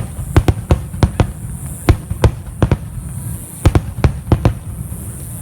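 Aerial fireworks shells bursting in a rapid, irregular series of sharp bangs, about a dozen in close clusters, which stop about four and a half seconds in.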